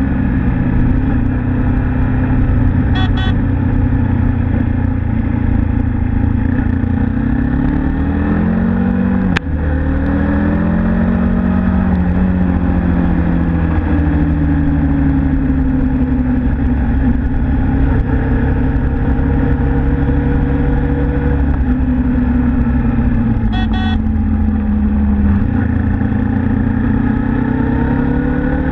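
Suzuki Inazuma GW250's parallel-twin engine running under way, its pitch rising and falling as the rider accelerates and eases off, over a steady rush of road noise. A single sharp click a little over nine seconds in, and two brief high beeping sounds, one early and one near the end.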